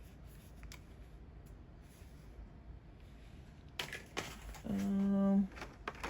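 Low handling noise from the plastic hair dryer and its attachment, with a few sharp clicks about four seconds in as the parts are fitted together. Just after the clicks comes a short hummed "hmm" from a woman, the loudest sound here.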